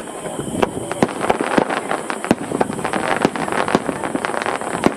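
Aerial fireworks going off in a rapid, irregular run of sharp bangs and cracks, several a second and thickest in the middle, over a crowd's voices.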